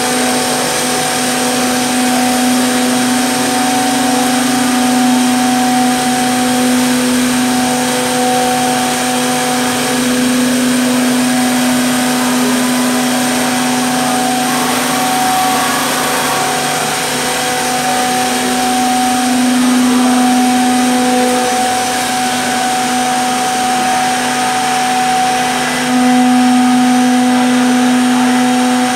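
Zhan Fei SDC-1500 CNC mortising machine running, its router spindles giving a steady whine over a noisy hiss as they cut mortises in wooden chair rails; it gets a little louder near the end.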